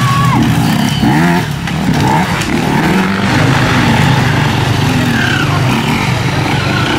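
Enduro motorcycle engine running hard, its pitch rising and falling again and again as the throttle is worked.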